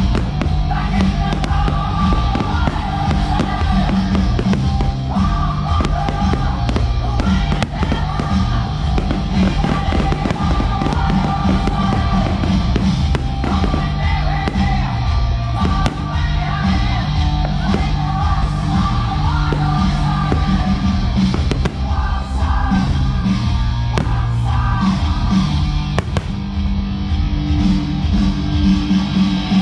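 Music with a melody and a stepping bass line plays throughout, while fireworks shells burst over it now and then.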